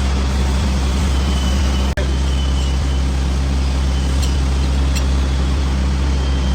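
Lathe machinery running steadily with a deep, continuous hum and a noisy hiss over it, broken by a brief dropout about two seconds in.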